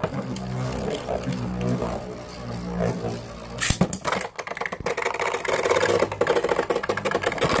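Spinning Beyblade tops in a plastic stadium: a low droning tone for the first few seconds, then, from about halfway, dense rapid rattling and clicking as the tops clash and grind against each other and the stadium wall.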